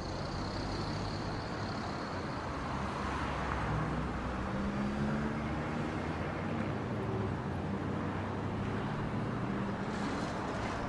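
Iveco tipper truck's diesel engine running steadily as the truck reverses, with its pitch rising slightly partway through over traffic noise. A smaller truck passes near the end.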